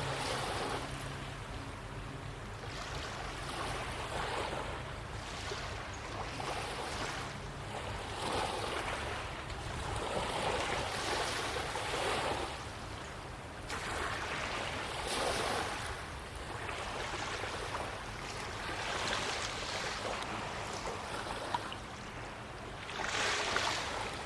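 Waves washing against the shoreline, rising and falling in repeated swells every two to three seconds. A faint low hum fades out in the first second or so.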